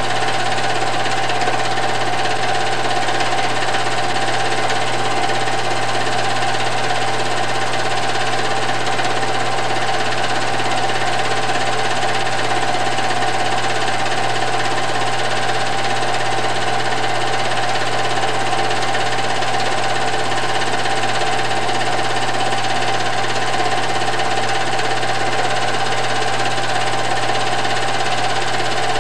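Film projector running steadily: a continuous mechanical whir with a constant hum, unchanging throughout.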